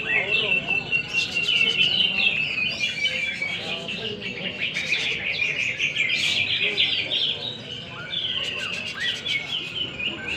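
Several caged cucak ijo (green leafbirds) singing at once, a dense overlapping stream of fast chirps and whistled phrases that eases briefly near the end.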